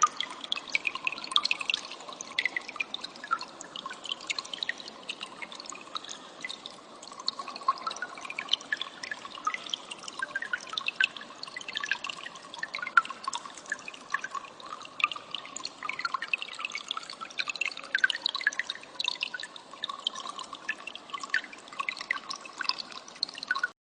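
Rapid, short, high chirps of a cililin bird over a steady trickle of running water with drips, all cutting off suddenly at the end.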